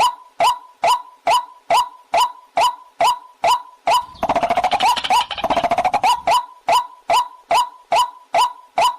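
Recorded call of a waterhen (pullakodi): a sharp clucking note repeated about twice a second. About four seconds in, it breaks into a fast rattling run with two lower dipping notes, lasting some two seconds, before the steady clucking resumes.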